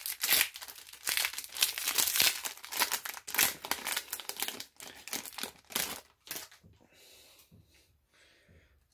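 Foil Yu-Gi-Oh booster pack wrapper crinkling and tearing as it is ripped open by hand, a dense crackling that dies away about six and a half seconds in.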